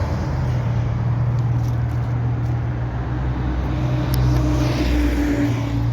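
Steady low engine hum of a motor vehicle, with a rush of noise that swells and fades about four to five seconds in, like a vehicle passing.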